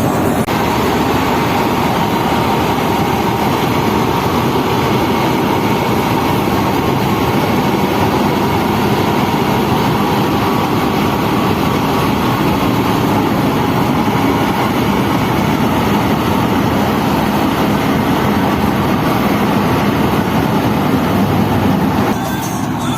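Paddy-cutting machine running steadily, a continuous loud mechanical noise that drops slightly in level near the end.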